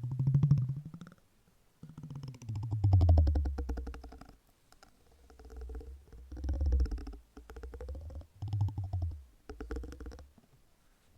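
Soft silicone rubbed or pressed in a series of strokes, each a second or two long, giving a low, rapidly pulsing purr-like buzz.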